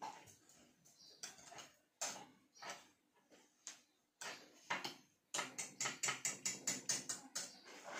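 Wire whisk beating thick polenta in a stainless steel saucepan, clicking and scraping against the metal. The strokes come unevenly at first, then settle into a quick steady rhythm of about five a second for the last few seconds.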